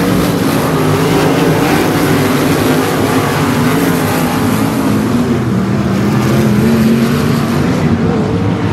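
Several 305 sprint cars' V8 engines running together on the dirt oval, their notes overlapping and wavering up and down in pitch as the cars go by.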